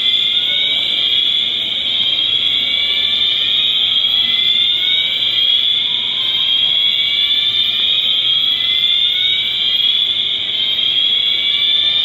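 Building fire alarm system sounding without a break: a loud, high tone with rising sweeps that repeat every few seconds.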